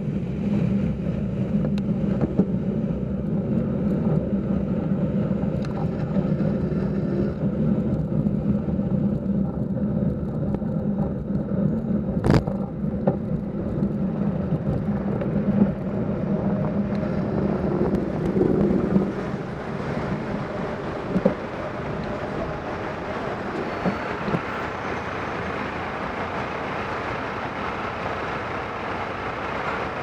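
Traffic heard from a bicycle: a bus's engine running close alongside gives a steady low rumble for about the first twenty seconds, then gives way to lighter road and wind noise. A single sharp click comes about twelve seconds in.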